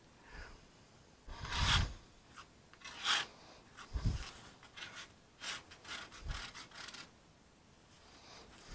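Metal spatula scraping and smearing body filler mixed with hardener across a piece of cardboard, in short irregular strokes with a few dull knocks.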